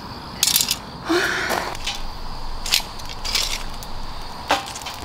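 Sharp clicks and wooden clacks, with a short rushing hiss about a second in, as kindling in a steel fire box is handled and lit.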